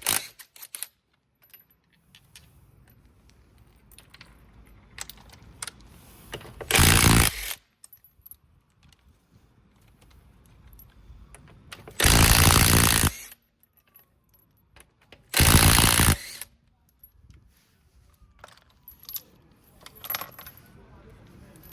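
Impact wrench running in three bursts of about a second each, undoing the wheel bolts, with light metallic clinks of bolts and socket in between.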